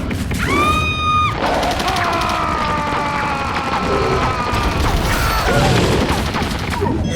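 Dubbed action sound effects over music: a short held electronic tone, then several slowly falling tones over a dense, crashing clatter.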